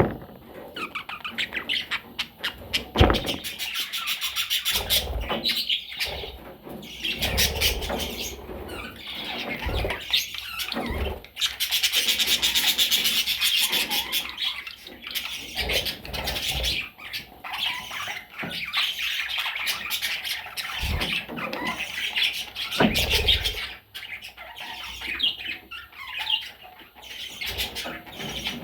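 Budgerigars chattering and chirping continuously in a rapid, warbling stream with squawks, loudest about halfway through. Several short low thumps are heard among the calls.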